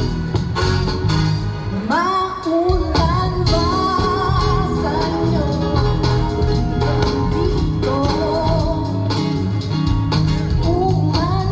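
A pop song sung over a band, the voice carrying a melody over a steady beat.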